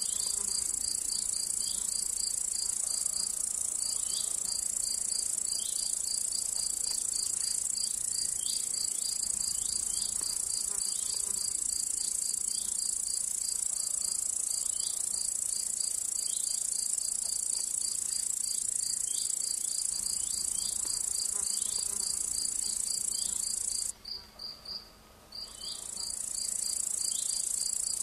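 Crickets stridulating: a continuous high-pitched buzz that stops for about two seconds near the end, over a second insect's steady rapid ticking a little lower in pitch.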